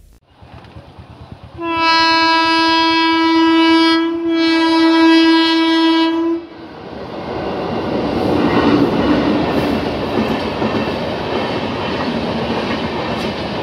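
Indian Railways electric locomotive's horn sounding one long blast of about five seconds, with a brief dip near the middle. The passing train's wheels on the rails follow, building up over a couple of seconds and then staying loud and steady.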